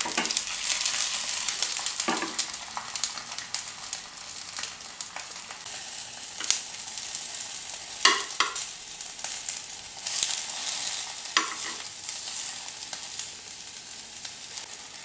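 Chicken sausages sizzling steadily in hot olive oil in a nonstick frying pan as they brown. A few sharp clicks come as metal tongs turn them in the pan.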